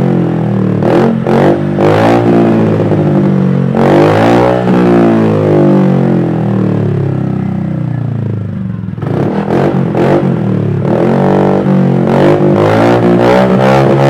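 Honda Click 125i scooter's single-cylinder engine, breathing through a LeoVince Cobra aftermarket exhaust, being revved repeatedly: the pitch rises and falls with each throttle blip, settles back toward idle a little past the middle, then climbs again in a run of quick blips.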